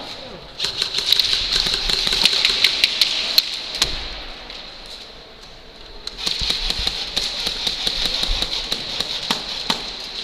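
Airsoft guns firing in rapid bursts, dense clicking shots over a high whirring hiss: one long burst starting about half a second in, and a second long burst starting about six seconds in.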